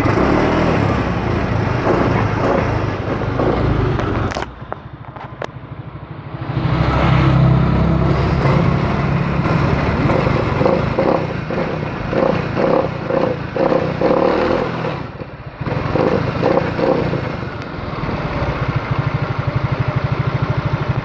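Suzuki engine running. Its sound drops away for a couple of seconds about four seconds in. From about ten seconds in it pulses unevenly, the strange sound the owner is showing.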